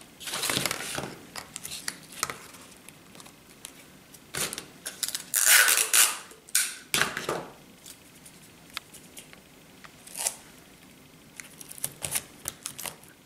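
Cardboard strips covered in coloured paper being handled, slid and pressed flat on a plastic-covered sheet: scattered rustles and scrapes, the loudest about five to six seconds in, with small taps near the end.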